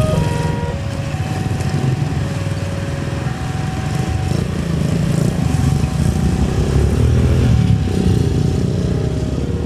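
Low steady rumble of idling motorcycle engines at a railway level crossing, with the crossing's electronic warning alarm sounding faintly in spaced tones at a few different pitches.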